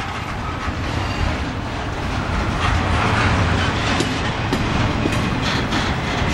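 Double-stack container well cars of an intermodal freight train rolling past close by: steady wheel-on-rail rumble, with a couple of sharp clicks about four seconds in.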